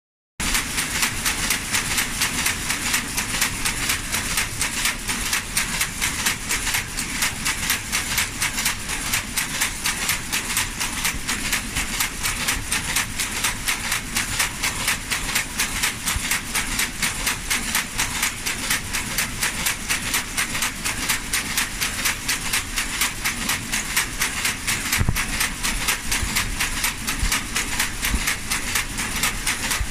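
Krenzler mechanical bobbin lace machine running: a rapid, even clatter from its ring of circling bobbin carriers, with a steady hiss above it and a couple of deeper knocks near the end.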